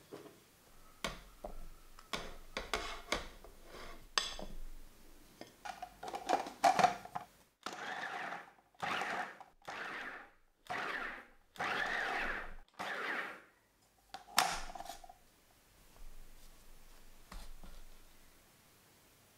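Light knocks and clicks as cold butter cubes go into a plastic food-processor bowl of flour. Then the food processor is pulsed about six times in short bursts, with one more brief burst near the end, cutting the butter into the flour until it is pea-sized.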